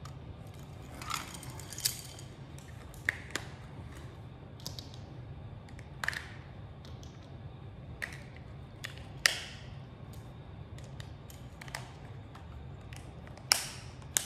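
Scattered sharp plastic clicks and taps with brief rustles, every second or so: a string-light set's small plastic battery box being opened and AA batteries fitted into it. A low steady hum runs underneath.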